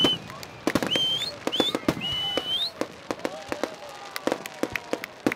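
Rapid-fire volley of aerial firework shells bursting, with many sharp bangs and crackles in quick succession. Three short rising whistles sound in the first two to three seconds.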